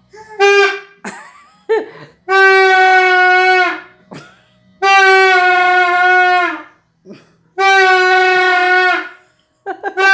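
A small child blowing a toy horn: a couple of short toots, then three long blasts of about a second and a half each, all on the same steady pitch, with another starting right at the end.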